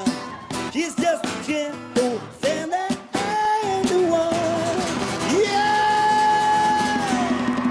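Live pop song: a man singing over strummed acoustic guitar, with sharp rhythmic percussion hits in the first few seconds, then a long high held note near the end.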